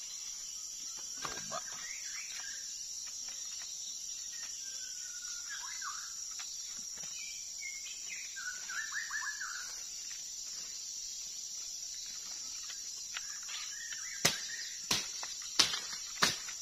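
Short whistled song phrases of white-rumped shamas, several times, over a steady high-pitched insect drone. Near the end comes a run of sharp, loud knocks.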